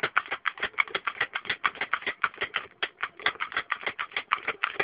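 Manual pick gun fired over and over in a pin-tumbler lock: a fast, steady run of sharp clicks, about eight a second, as its needle snaps against the pins.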